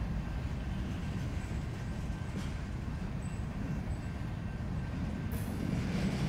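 Train cars rolling past with a steady low rumble, faint thin wheel-squeal tones above it, and a short sharp clank about five seconds in.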